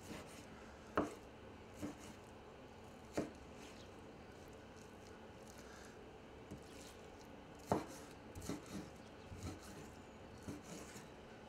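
A large kitchen knife chopping pork on a wooden cutting board: separate knocks of the blade hitting the board. There are about eight of them, a few widely spaced at first, then a quicker run of chops near the end.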